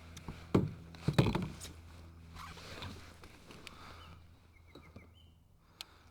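Gear being handled aboard a kayak: two sharp knocks about half a second apart near the start, then lighter rustling and clicks, over a steady low hum.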